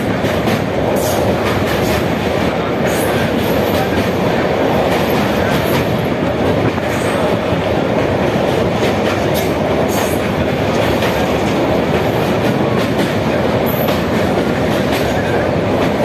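Train wheels running over the rails of a steel girder bridge, heard from inside the coach: a steady, loud rumble with a few faint clicks from the track.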